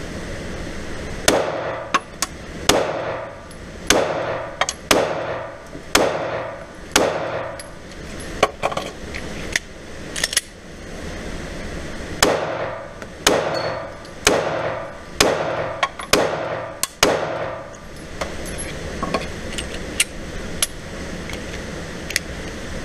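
Pistol shots from a Glock 43 9mm, echoing in an indoor range: six shots about a second apart, a pause of a few seconds with small clicks of a magazine reload, then six more at the same pace.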